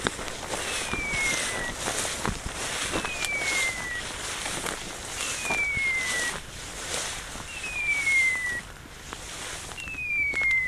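A high whistle tone that slides down in pitch over about a second, repeated five times at an even pace of about one every two and a quarter seconds, each call the same, over steady rustling.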